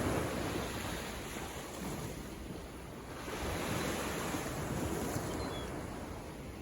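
Ocean surf: waves breaking and washing in, one surge easing off early and another building again about three and a half seconds in.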